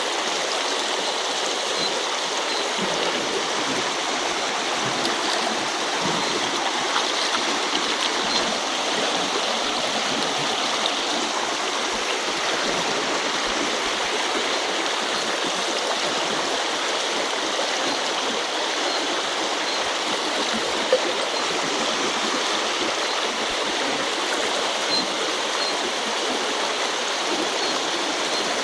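Small river flowing, a steady rush of running water, with one sharp click about two-thirds of the way through.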